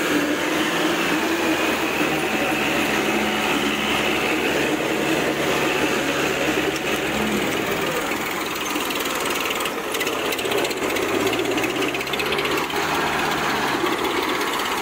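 Two tractor diesel engines, an Eicher 551 and an orange Kubota, clattering hard under heavy load as they pull against each other on a tow strap. The engine pitch sags about halfway through, then rises and falls again a few seconds later as the load shifts.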